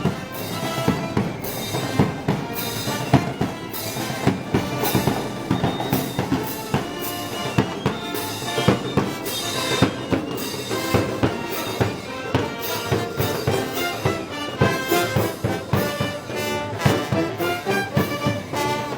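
A brass band with drums playing Moros y Cristianos festival music, with trumpets over a steady drum beat.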